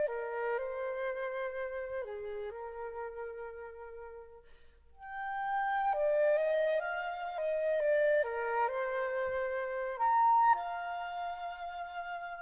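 Flute melody in slow, held notes from a concert band work, fading away about four seconds in and starting again a second later.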